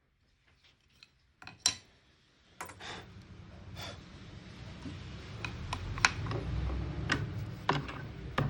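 Irregular knocks and clicks of wood and hand tools being handled on a workbench, over a low rumble that grows gradually louder.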